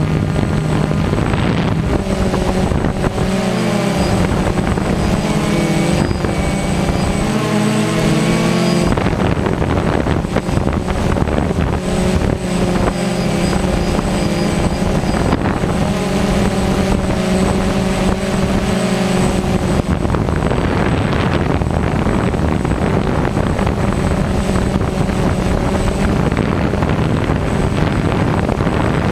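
DJI Phantom quadcopter's propellers and electric motors whirring loudly, heard close up from the drone itself. Several tones waver up and down in pitch as the motors change speed, then hold steadier near the end.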